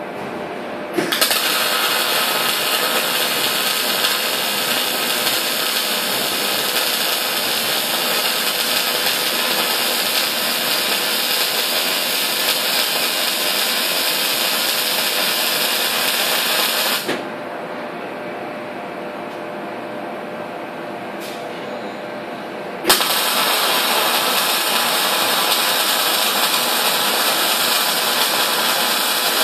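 Electric arc welding of steel door hinges: a steady crackling, sizzling arc in two long runs, the first stopping about 17 seconds in and the second striking up about 6 seconds later. Between the runs only a quieter steady hum remains.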